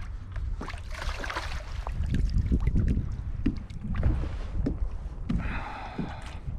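Wind buffeting the microphone over water slapping against a kayak's hull, with scattered small knocks and clicks. A brief higher, buzzing sound comes near the end.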